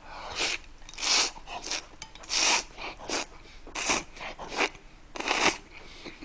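A person slurping noodles, with about eight short, loud sucking bursts spread irregularly over six seconds.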